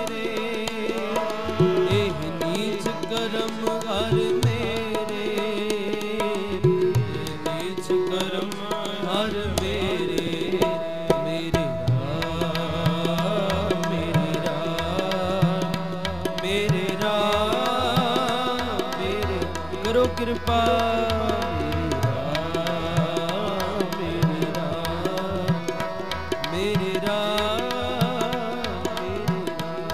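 Harmonium playing a kirtan melody with steady tabla drumming under it.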